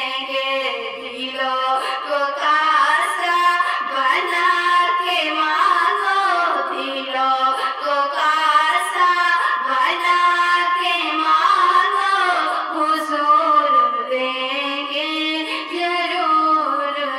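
A woman singing a naat, a devotional Islamic song, in long held notes that slide up and down in pitch.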